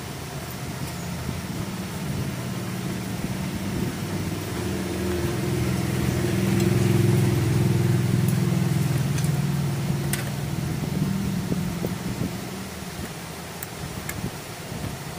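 An engine running, growing louder to a peak about halfway through and then fading away, as a passing vehicle does. A few light clicks sound near the end.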